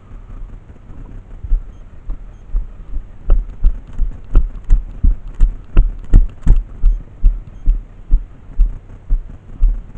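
Low, even thuds recurring about three times a second, starting faint and becoming strong about three seconds in, over a steady low rumble.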